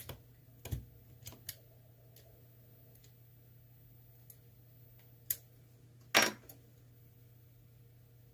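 Lock pick and tension tool working inside an ASSA Twin lock cylinder: sparse small metallic clicks and ticks, a few in the first second and a half, and the loudest, slightly longer click about six seconds in.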